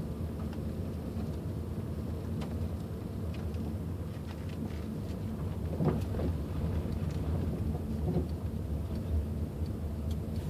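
Steady low rumble of a 2002 Nissan Maxima, with faint knocks and clicks at irregular moments, the strongest about six seconds in: the knocking noise from the rear of the car.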